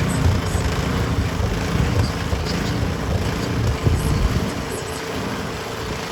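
An engine running steadily under a broad rushing noise, with a brief low knock about four seconds in.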